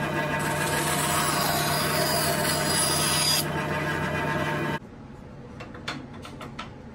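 Bandsaw running with a steady hum while it cuts through a small wooden block, the rasping cut noise lasting about three seconds. The saw sound cuts off suddenly near five seconds in, leaving a few light clicks and knocks.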